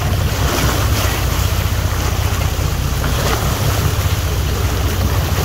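Wind buffeting the microphone over a steady low rumble and sea noise aboard an offshore fishing boat.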